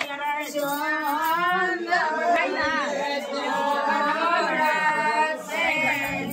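Women singing a traditional wedding folk song (geet) for the haldi ritual, voices only with no instruments, the sung notes held and gliding without a break.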